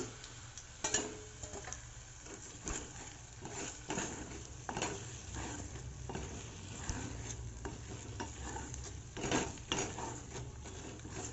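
Steel spoon stirring and scraping spiced sliced okra and chopped tomatoes around a metal kadai, irregular scrapes and clinks over a faint sizzle of frying. The loudest scrapes come about nine seconds in.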